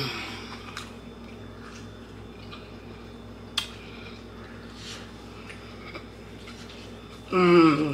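Quiet close-up eating sounds: soft chewing and handling of a saucy burger, with a few faint clicks and one sharper click about three and a half seconds in. Near the end the eater gives a short hummed 'mmm' that falls in pitch.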